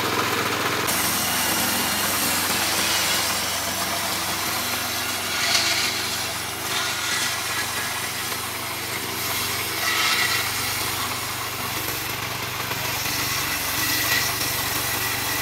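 Small stationary engine running steadily while driving a circular saw blade that rips a wooden slab lengthwise. The cutting noise starts about a second in and swells louder three times as the slab is pushed through.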